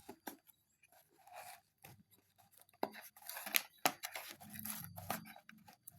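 A speaker's retail packaging being opened by hand. Scattered sharp clicks and snips with some rustling, sparse at first and coming more often after about three seconds.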